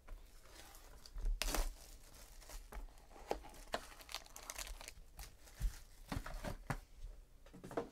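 Plastic wrapping tearing and crinkling as a boxed trading-card pack is unwrapped, with the taps and scrapes of the cardboard box being opened and handled. The loudest rip comes about a second and a half in.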